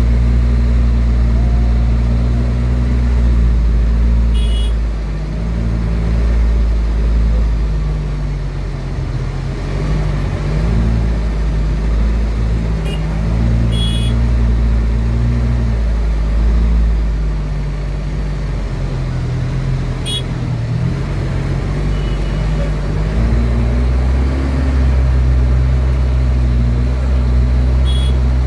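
A road vehicle's engine running in slow, dense street traffic, easing off in the middle and picking up again near the end. Short high-pitched beeps or rings from other traffic sound a few times.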